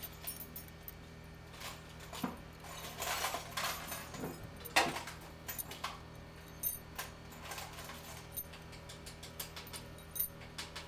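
Light metallic clicks and clinks of steel pushrods and valve gear being handled and set into a Mercedes-Benz OM501 diesel cylinder head, with a sharper clink about five seconds in, over a steady low hum.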